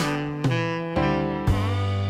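Instrumental background music, with new notes or chords striking near the start, about half a second in and about a second and a half in.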